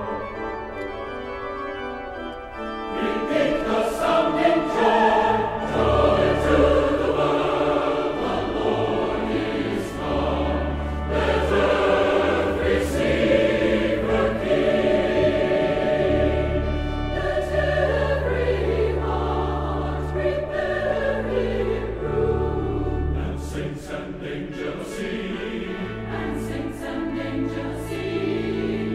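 Music: a choir singing held notes over a sustained low bass accompaniment.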